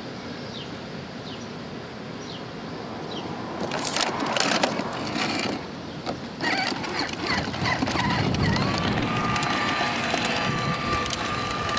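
A child's ride-on ATV rolling over asphalt. From about four seconds in, its hard wheels crackle and crunch over the grit, and a steady high whine joins in during the second half.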